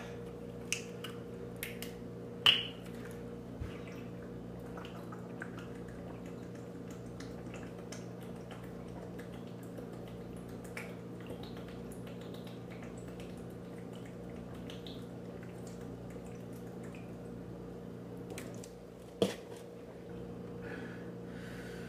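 A man gulping water from a plastic water bottle: faint swallowing clicks and bottle crinkles over a steady low hum, with a sharp click about two and a half seconds in and a short knock near the end.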